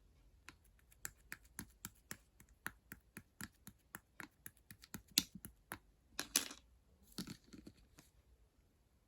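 Slime being pressed and squeezed by hand, making a quick run of small clicks and pops, about three a second. A longer, crackling squish comes a little past the middle.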